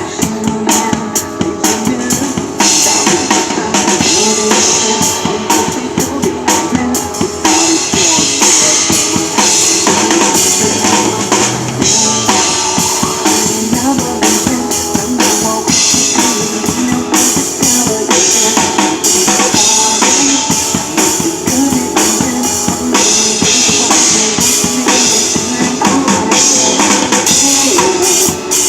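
Drum kit played along to a recorded song: steady kick and snare beats with cymbal wash, over the song's backing music.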